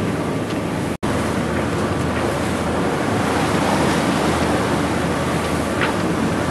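Strong wind buffeting the microphone and sea water rushing and churning along the hull of a sailing yacht under motor sail, with a steady low engine drone underneath. The sound drops out for an instant about a second in.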